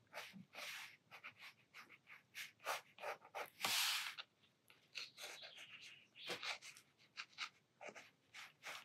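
Sakura Micron fine-liner pen scratching short, quick strokes on watercolor sketchbook paper, inking small details, with one longer hiss about three and a half seconds in.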